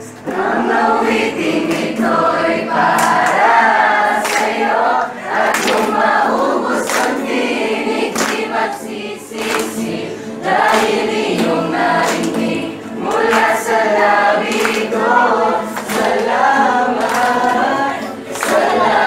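A group of young voices singing together, unrehearsed and roomy, with sharp percussive hits scattered through the song.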